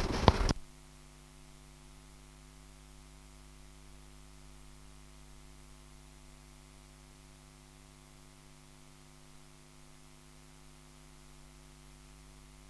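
Faint, steady electrical mains hum with a stack of evenly spaced overtones, left on the recording once the last spoken word stops about half a second in.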